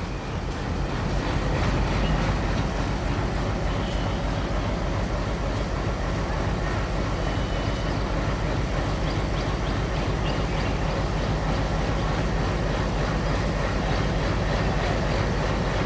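WDM-3A diesel locomotive with a 16-cylinder ALCO 251-C engine, running as it approaches slowly at the head of a passenger train. The sound grows louder over the first two seconds, then holds steady.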